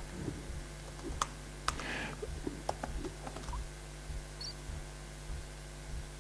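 Sparse key clicks of a laptop keyboard being typed on, irregular and strongest in the first few seconds, over a steady low hum.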